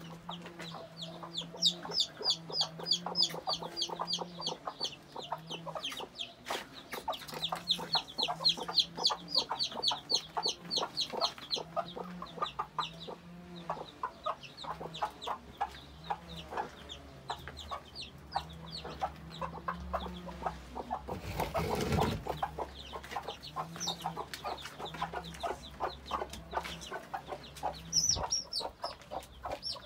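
Newly hatched bantam chicks peeping in fast runs of high, falling chirps, over the steady low clucking of bantam hens. A brief rush of noise breaks in about two-thirds of the way through.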